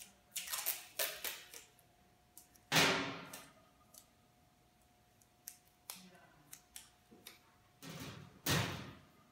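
Paper tape being pulled from its roll and torn in several quick rips, the longest and loudest about three seconds in, with small ticks of handling after. Near the end comes a louder rustle as the tape is pressed onto a cloth-wrapped surgical pack.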